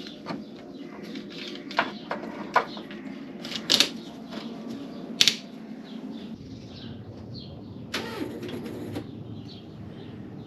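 Sharp ratcheting clicks of a plastic hose clamp being squeezed shut on a fuel return hose, about four clicks in the first five seconds. Under them runs a steady low hum that grows deeper about six seconds in.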